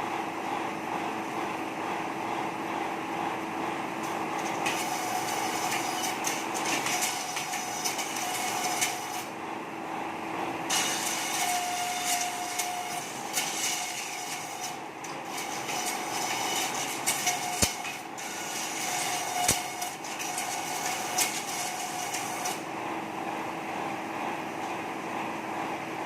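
Satay-skewer slicer and double-planer machine with an 11 hp single-phase motor running steadily, with long stretches of rasping cutting as stock is fed through the blades and two sharp knocks in the middle.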